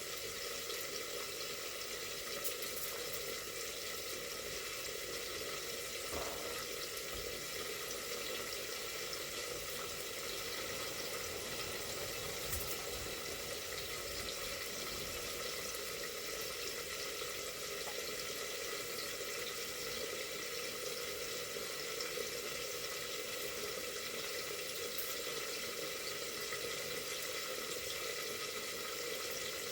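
Steady sizzling hiss of food cooking in a pot on the stove, with a few faint clicks.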